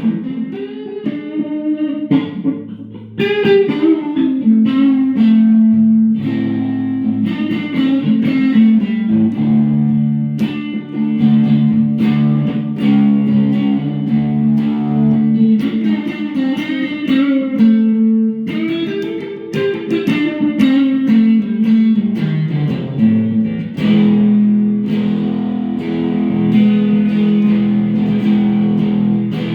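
Electric guitar played through a Boss Katana amp feeding a Fender Acoustasonic amp: bluesy single-note lines with bent, sustained notes, moving into fuller held chords near the end.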